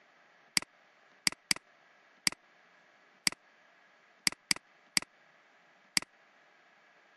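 About nine sharp, short clicks of the pointing device at irregular intervals, each starting a stroke of on-screen handwriting, over a faint steady hiss.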